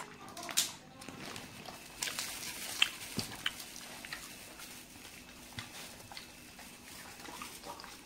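Dog eating a piece of fresh water chestnut: scattered sharp crunches and clicks as it chews, heaviest in the first half.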